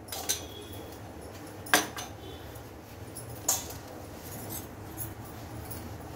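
A few sharp clinks of small kitchen dishes being handled, a glass bowl among them, over a steady low hum. The sharpest clink comes a little under two seconds in.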